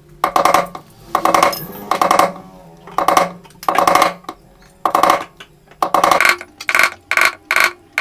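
A hammer tapping a sharpened 2-inch nail used as a chisel, cutting a recess for a drawer lock's bolt into a laminated board. Sharp metallic strikes with a short ring, about two a second, quickening to about four a second after six seconds in.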